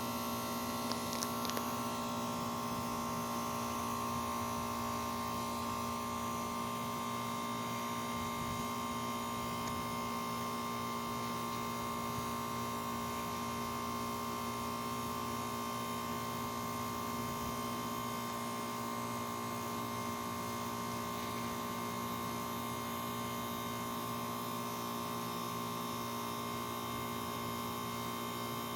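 1995 BDP heat pump outdoor unit running in its defrost cycle: the compressor gives a steady electrical hum with a few faint ticks about a second in.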